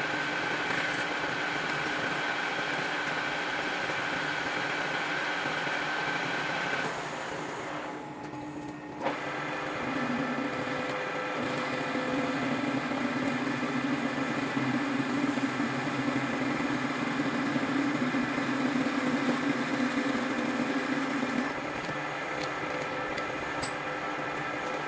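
Metal lathe running with a steady whine of several tones while a twist drill in the tailstock bores into the spinning workpiece. The sound drops about seven seconds in, a click follows near nine seconds, and from about ten seconds a louder low drone of the drill cutting runs until about twenty-one seconds.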